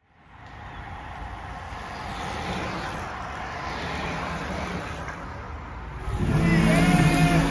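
Steady outdoor road noise, a rush of passing traffic along the street where cyclists ride, fading in just after a short silence. About six seconds in, music comes in over it and gets louder.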